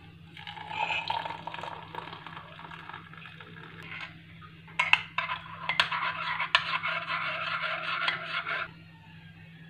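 A hot drink is poured from a kettle into a ceramic mug. From about five seconds in, a metal spoon stirs it, clinking sharply against the mug's sides. A low steady hum runs underneath.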